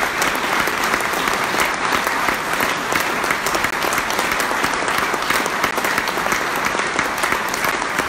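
Large audience applauding steadily: dense, even clapping from hundreds of people.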